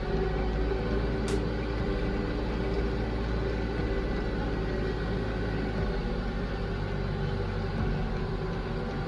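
TYM T574 compact tractor's engine running at a steady speed: a constant low drone with a few fixed tones above it.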